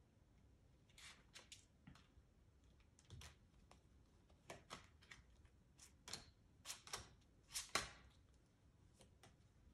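Tarot cards being shuffled in the hands and laid on a cloth-covered table: an irregular run of soft card snaps and slaps, denser and loudest near the end.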